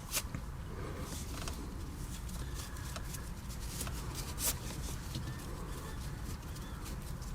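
Faint rustling and soft clicks of rope being handled as a knot is tied, with one slightly louder tick about four and a half seconds in, over a low steady background hum.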